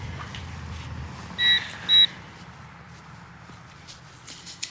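Handheld metal-detecting pinpointer beeping twice, short high beeps about half a second apart, as it is probed through the dug soil and picks up a buried metal target.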